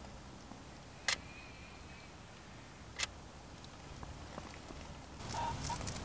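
Two single shutter clicks from a Canon EOS 7D Mark II DSLR, about two seconds apart, each a short sharp click. Soft rustling rises near the end.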